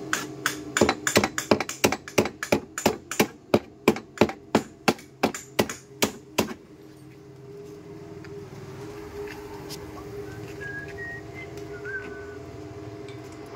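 A small hammer striking a sheet-metal wheel-arch panel during body repair: about two dozen quick, ringing blows at roughly four a second, stopping about six and a half seconds in. A steady hum goes on underneath.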